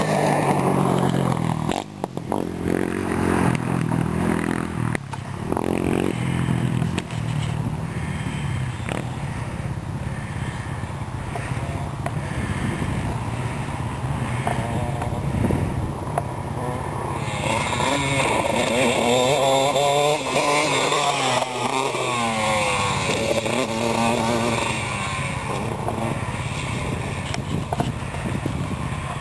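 KTM 150 SX two-stroke motocross bike riding laps, its engine revving up and down through the gears. It is loudest as it goes by at the start, then farther off, with quick rises and falls in revs in the second half.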